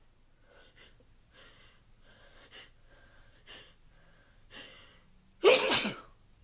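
A person's hitching breaths: about five short, sharp intakes roughly a second apart, building up to one loud sneeze near the end.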